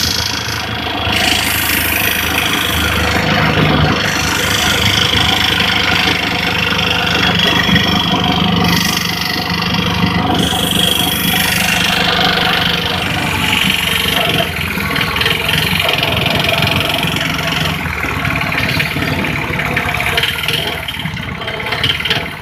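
Auto-rickshaw (tempo) engine running steadily while under way, heard from inside the open passenger cabin along with road noise.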